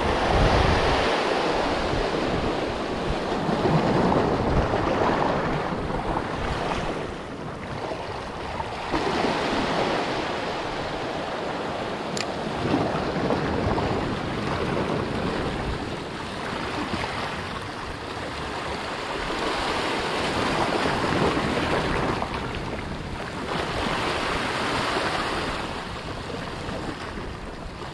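Sea waves washing over a coral-rock shore, swelling and ebbing every few seconds.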